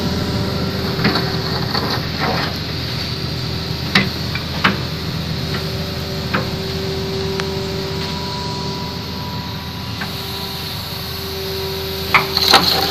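Hitachi hydraulic excavator running steadily, with a whining tone that swells and fades as the boom and bucket move. Sharp knocks come every second or two, with the loudest cluster near the end.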